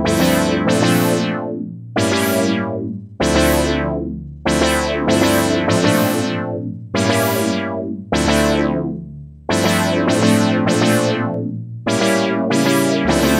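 Clavia Nord Lead 2X virtual-analog synthesizer playing a custom patch, heard straight from its line output. It plays a run of struck chords, about one a second, each starting bright and growing duller as it fades.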